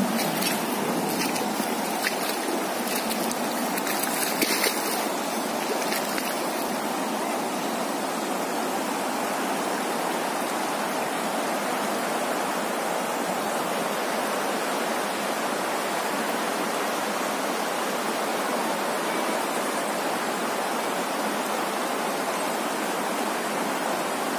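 Shallow, rocky river water rushing steadily over stones, with a few brief clicks in the first several seconds.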